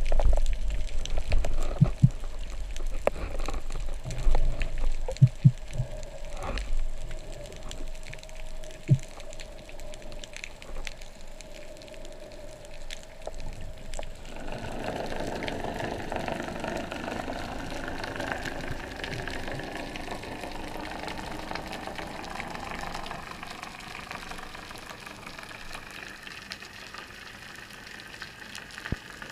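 Underwater noise picked up by a camera in a waterproof housing on a speargun: low water rushing with a few short knocks in the first half, then a steadier, even hiss from about halfway.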